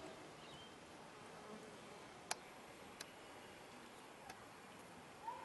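Bees buzzing faintly at the flowering spike of a grasstree, with two sharp ticks a little over two seconds in and at three seconds.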